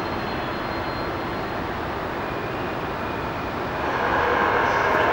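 DB Class 103 electric locomotive standing at the platform, giving a steady hum and whir. The sound grows louder about four seconds in.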